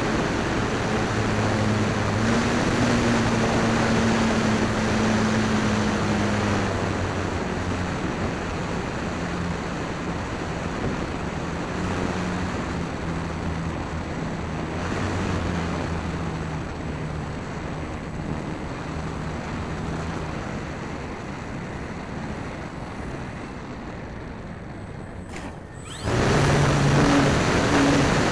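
Wind rushing over the microphone of a camera riding on a Dynam Waco electric RC biplane in flight, with the hum of its electric motor and propeller shifting in pitch as the throttle changes. Near the end the sound cuts abruptly to a louder, more even rush of wind noise.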